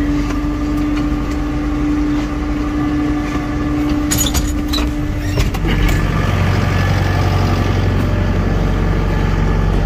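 Loader tractor's engine running, heard from inside the cab. A steady tone rides over it and stops about halfway through, after which the running sound turns deeper and a little louder. A couple of sharp clicks come just before the change.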